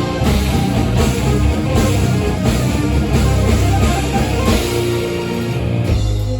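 Live rock band playing an instrumental passage: electric guitar, bass and drum kit, with cymbal hits about every 0.7 s. About six seconds in, the drums drop out and a held chord rings on.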